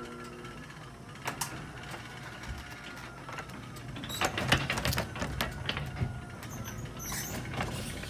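Wall-mounted garage door opener running on the door's shaft, with clicking and mechanical rattling that grows denser and louder about four seconds in.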